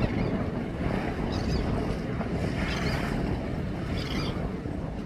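Wind buffeting the microphone in a steady low rumble over the wash of water, with faint short high sounds now and then.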